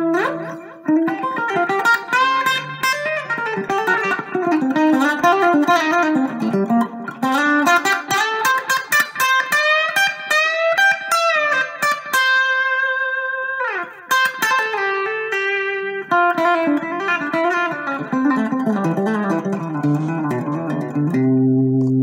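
IYV IJZ-300 semi-hollow electric guitar being played: a run of single notes and chords moving up and down the neck, with a long held chord about twelve seconds in that ends in a quick slide down.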